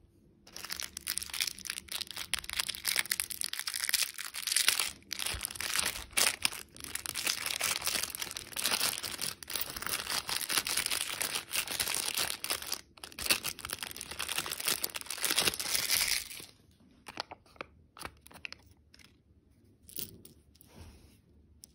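Small plastic candy wrapper crinkling and tearing as it is handled and pulled open, for about sixteen seconds, then a few light clicks and taps.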